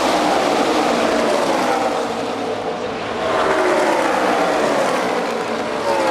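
A pack of NASCAR stock cars passing at full throttle, their V8 engines dropping in pitch as each goes by, with a fresh wave of cars passing about three seconds in.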